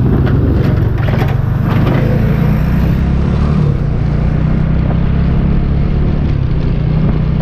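Honda Winner X motorcycle engine running at a steady riding speed, a continuous low drone mixed with wind and road noise.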